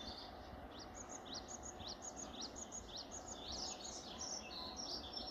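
Wild songbirds chirping and singing in the hills, several birds overlapping in quick runs of short, high, rising notes over a steady background hiss.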